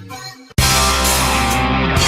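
Loud distorted rock or metal music with guitar cuts in suddenly about half a second in, after a quieter tail of the previous clip.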